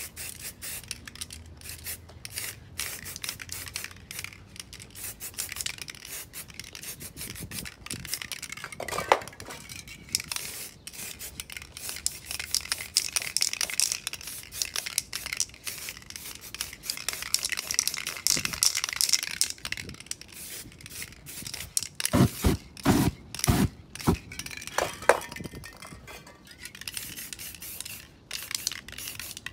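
Aerosol spray paint cans hissing in short bursts and longer sprays, among many clicks and clinks of cans and caps, rubbing and scraping on the painting surface. A few louder low thumps come about three-quarters through.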